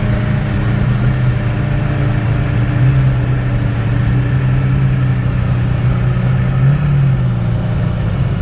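Tofaş Doğan car's engine running loud at a steady pitch, held at constant revs, with a brief rise in pitch about seven seconds in.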